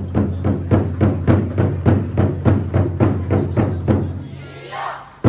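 Large Chinese drums of a Twenty-four Festive Drums troupe beaten in a rapid, steady rhythm, about four to five strokes a second, that fades out about four seconds in. A brief voice sounds near the end.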